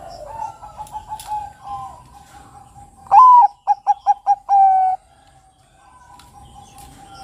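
Bangkok-bred zebra dove (perkutut) cooing. Soft rolling coos come first, then about three seconds in its loud song: a rising opening note, a quick run of five short notes and a longer closing note.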